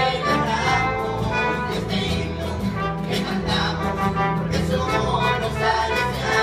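Live band playing an instrumental passage without vocals: trumpets, trombone and saxophones over electric bass, acoustic guitar and keyboard, with a steady beat.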